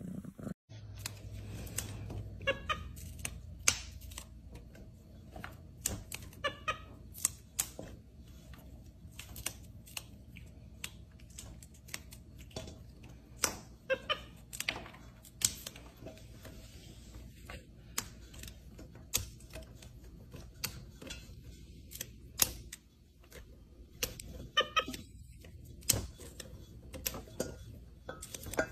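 Fresh green beans being snapped by hand: crisp, irregular snaps, one or two a second.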